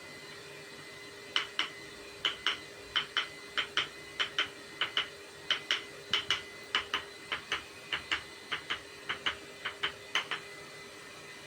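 Sharp clicks in quick pairs, about one and a half pairs a second, starting about a second in and stopping shortly before the end, over a faint steady hum.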